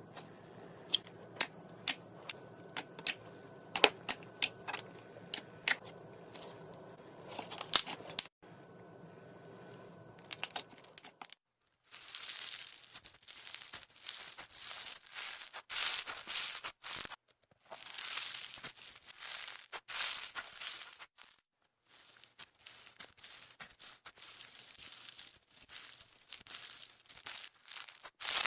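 Slime being handled: a series of sharp pops and clicks, one or two a second, for about the first ten seconds. Then, after a cut, dense crinkly crackling in uneven bursts.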